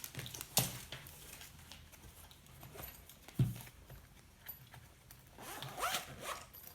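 A soldering kit being unpacked by hand: scattered clicks and knocks of parts and packaging, a heavier thump about three and a half seconds in, and a burst of scraping and rustling near the end.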